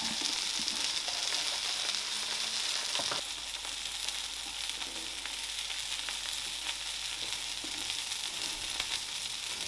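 Food sizzling steadily in a frying pan, a high even hiss with faint scattered crackles. A light knock about three seconds in.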